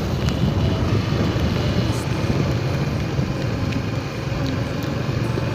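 Steady running noise of a vehicle on the move: a low engine hum under the rush of road noise.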